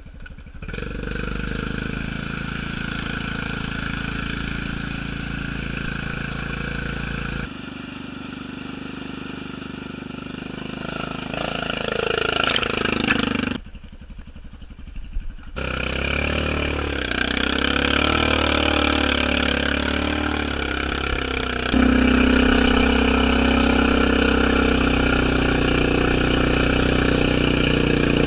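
Honda Rubicon ATV's engine running under load in second gear while the machine floats and paddles through deep mud. It holds steady stretches with shifts in speed, drops off briefly about halfway, then runs louder near the end.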